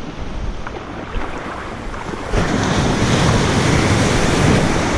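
Small surf waves washing over a sandy beach, with wind buffeting the microphone. A little over two seconds in, the wash turns abruptly louder as a wave breaks at the water's edge.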